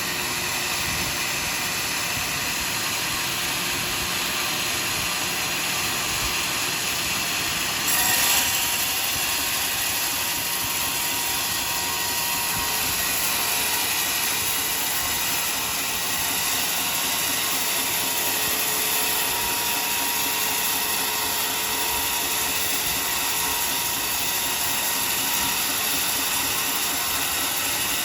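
Sawmill saw running steadily through a large log, a continuous hissing machine noise with a faint steady whine. About eight seconds in it briefly gets louder and then stays brighter and hissier.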